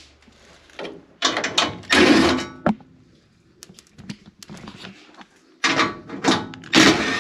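A cordless drill/driver with a 1/4-inch nut driver spinning out the sheet-metal screws on a furnace panel, in two groups of short whirring bursts about a second apart, with small clicks of screws and metal between.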